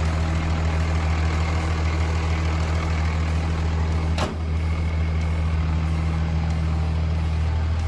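Turbocharged Cummins diesel engine in a Dodge Ram pickup idling steadily, with a low, even engine note. A brief click and dip in level comes about four seconds in.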